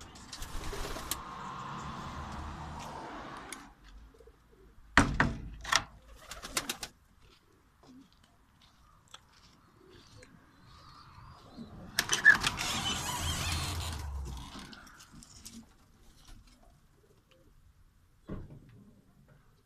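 Fancy pigeons cooing. Two longer noisy stretches and a few sharp knocks, one cluster of them about five seconds in, break in.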